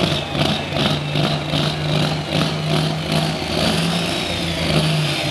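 Engine of a super stock pulling tractor idling steadily, with a high whistle over the low hum.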